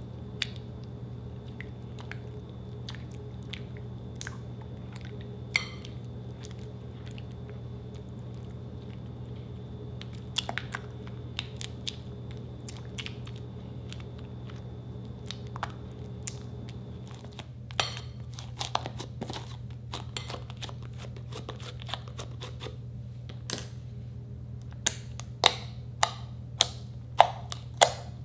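Blue slime mixture being stirred with a silicone spatula in a glass bowl, giving scattered wet clicks, then thickened slime worked by hand, sticky and crackling. Near the end, fingers poke into the slime, making a run of sharp pops about two a second. A steady low hum runs underneath.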